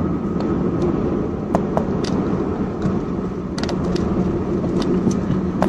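Steady engine and road noise heard from inside a moving car's cabin, with a few faint clicks scattered through.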